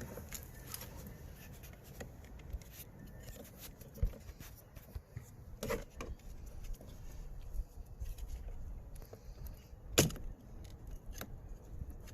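Scattered clicks and knocks of plastic interior trim being pried and handled on a car door, with a sharp knock about ten seconds in.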